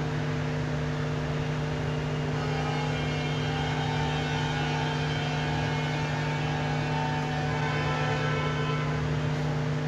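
Steady machine hum with a few held low tones, unchanging throughout.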